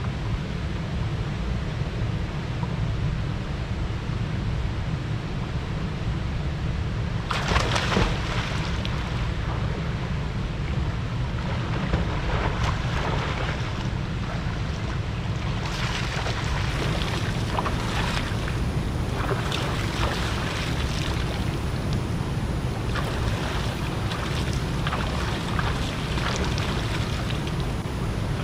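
Water splashing in irregular bursts as a person swims and wades through a shallow river pool, starting about seven seconds in, over a steady low rumble.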